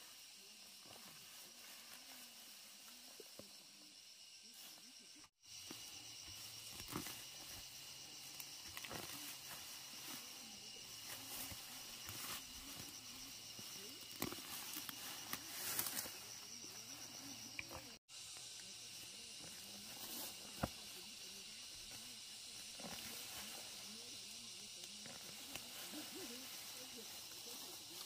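Steady, high-pitched chorus of insects, with scattered faint rustles and clicks.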